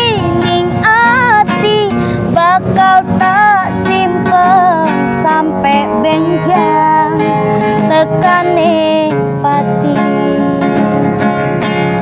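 A woman singing in Javanese with an ornamented, wavering melody over a strummed acoustic guitar. The singing is strongest for the first nine seconds or so, and the guitar is more to the fore near the end.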